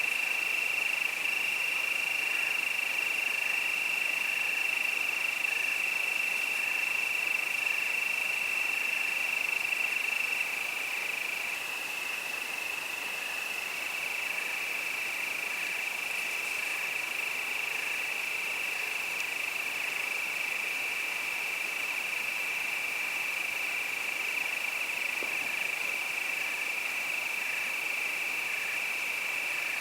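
Crickets calling at nightfall: one high, unbroken trill, with a softer chirp repeating about once a second beneath it.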